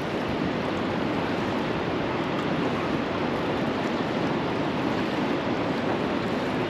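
Steady rushing of fast, heavy river current flowing through from a dam, an even noise with no distinct events.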